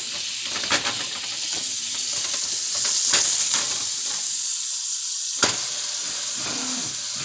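Butter sizzling steadily in a skillet under a frying grilled cheese sandwich. A few sharp clicks of a slotted spatula against the pan come as the sandwich is worked and turned over.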